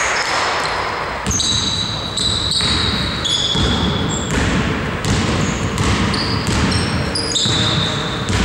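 Basketball shoes squeaking in short, high chirps on a sports-hall floor, with the ball bouncing during play.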